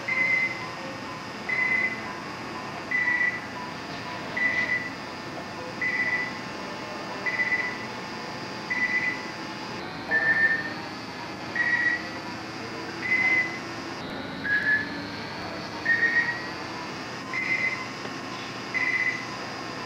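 Hospital bedside equipment beeping: a short, high electronic beep repeating steadily about every second and a half, over a faint steady background hum.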